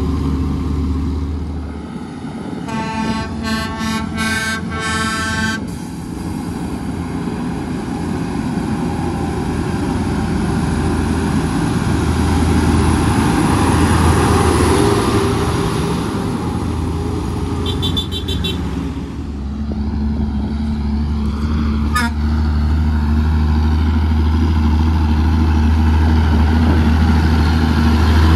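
Heavy diesel truck engine running as a steady low drone, with a vehicle horn tooting in a quick series of short blasts about three seconds in.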